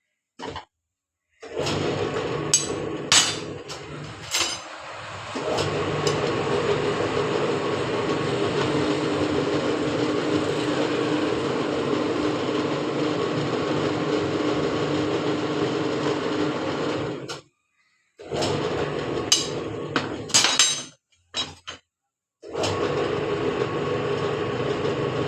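A machine motor running steadily, with a few sharp knocks. The sound breaks off abruptly several times.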